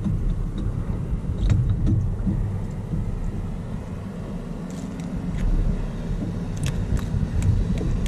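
Steady low rumble of wind and sea on an action camera's microphone, with a scattering of light clicks and taps as tackle and a freshly caught fish are handled.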